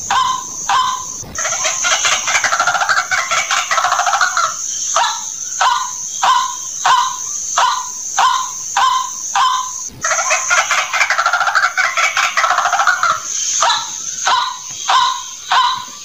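White-breasted waterhen lure-call recording: a run of short, repeated croaking notes, about one to two a second, broken twice by a longer chattering stretch, over a steady high hiss.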